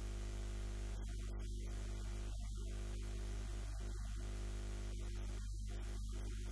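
Steady electrical mains hum with a buzzing row of overtones over a hiss of static, unchanging throughout.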